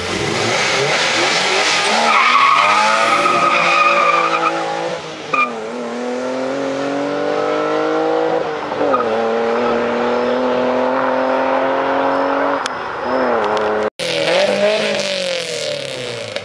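Drag-racing street cars launching hard from a standing start, tyres squealing for the first few seconds as the engines rev. The engine note then climbs and drops back at each gear change, about three shifts, as the cars pull away. The sound cuts out for an instant a couple of seconds before the end, then an engine revs up again.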